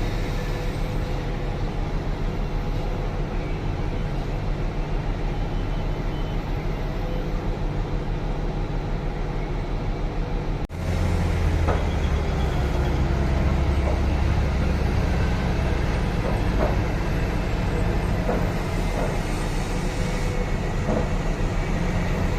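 Heavy diesel engines of a mining excavator and haul truck running steadily during loading. A sudden cut about ten seconds in gives way to a louder, deeper engine sound with a few short knocks.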